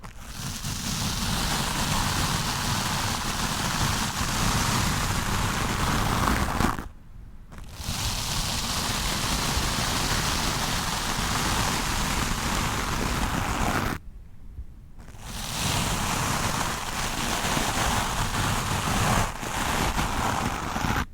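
Stiff-bristled wooden brush scrubbed hard and continuously against a microphone, a dense scratchy rustle. It stops briefly twice, about seven and fourteen seconds in.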